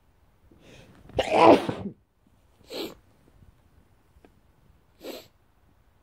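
A man's allergic sneeze: a rising in-breath, then one loud sneeze about a second in. Two shorter, quieter bursts of breath follow, about two and four seconds later.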